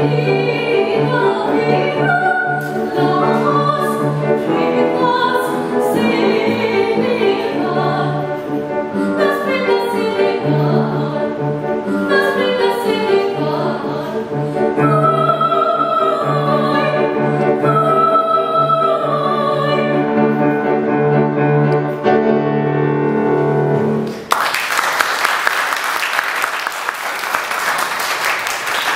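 A woman singing a classical solo in operatic style, her held notes wavering with vibrato over accompaniment. The song ends about 24 seconds in and the audience breaks into applause.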